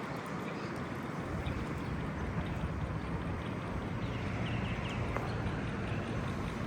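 Steady street ambience: a constant hum of traffic, with a few faint high chirps about four and a half seconds in.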